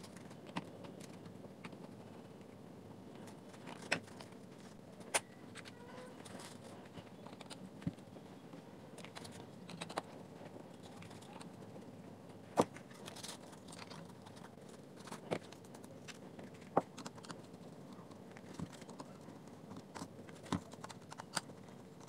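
Scattered sharp clicks and light taps of a small screwdriver working on the plastic ring and barrel of a projector lens assembly, irregular and about a dozen in all, the loudest about halfway through.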